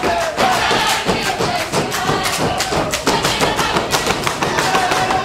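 Folk dancers stamping, slapping and clapping in fast rhythm on a stage floor: a dense, continuous run of sharp knocks and claps, with music faintly underneath.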